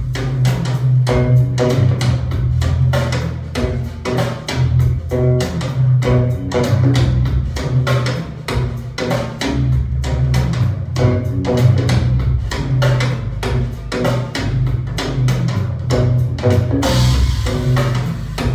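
Recorded music with a drum kit and guitar over a strong, steady bass beat, played through open-baffle loudspeakers driven by an F2a tube amplifier, with a brighter cymbal wash near the end.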